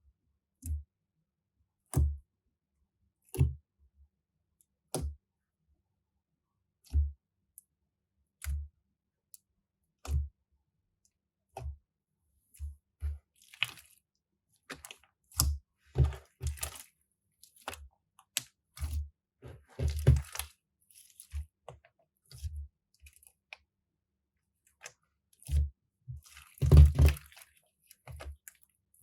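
Crunchy slime being pressed and squeezed by hand, giving separate pops and crunches a second or two apart at first, then quicker crackly clusters, with a longer, louder crunch near the end.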